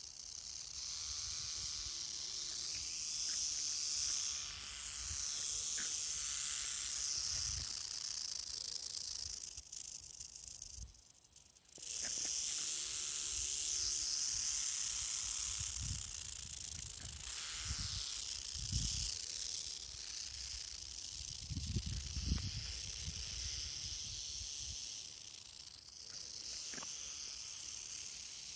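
Diamondback rattlesnake rattling its tail: a continuous high dry buzz, the warning sound of a disturbed rattlesnake, that breaks off for about a second near the middle and starts again. A few dull low thumps come in the second half.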